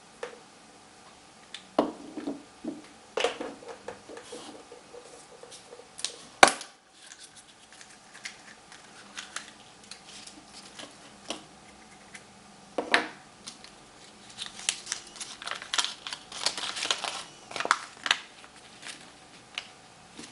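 Handling of a Kinder Surprise egg's yellow plastic capsule: scattered clicks and taps, with one sharp snap about six seconds in, as the capsule is opened. In the last few seconds the folded paper sticker sheet crinkles as it is unfolded.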